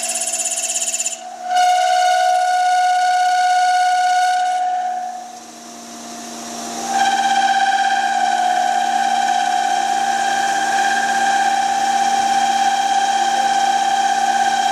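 CNC turn-mill lathe at work, giving a steady high whistling whine with overtones. It breaks off briefly about a second in and again for about two seconds near the middle, then comes back a little higher in pitch, over a faint steady hum.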